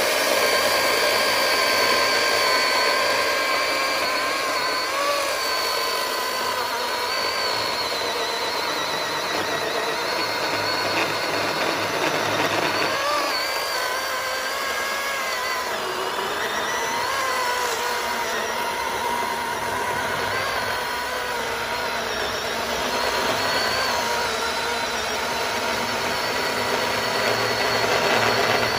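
Milwaukee Fuel cordless electric chainsaw running continuously, cutting wood, with a steady high whine whose pitch wavers slightly.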